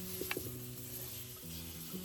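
Food sizzling in a pan, with a sharp crackle about a third of a second in, over soft background music with long held notes.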